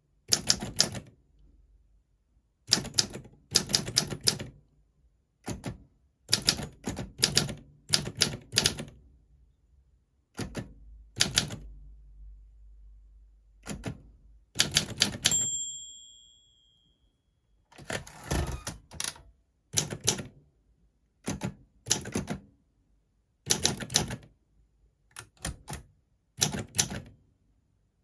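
Olympia SM4 manual portable typewriter being typed on, keys striking in quick word-length runs with short pauses between them. About halfway through, the bell rings once, warning that the end of the line is near.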